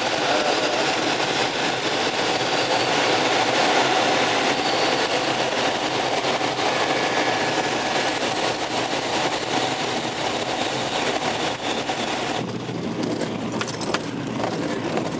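Steady rushing wind noise in a glider's cockpit on the low approach and the roll-out on grass. The hiss drops away sharply about twelve seconds in as the glider slows, leaving a few knocks.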